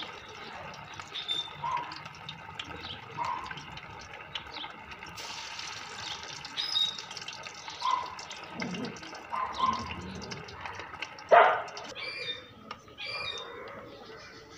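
Nethili (anchovies) deep-frying in hot oil in an aluminium kadai: a steady crackling sizzle, with one sharp knock about eleven seconds in.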